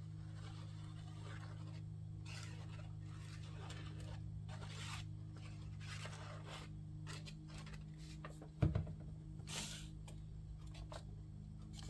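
Paper craft pieces rustling and scraping as they are handled and pressed onto a paper plate, with one sharp knock about two-thirds of the way through. A steady low hum runs underneath.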